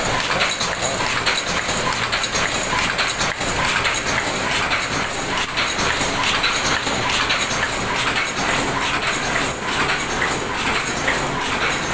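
Fully automatic open-cam paper cup making machine running, its cam-driven forming turrets and feed mechanism clattering in a fast, steady stream of clicks.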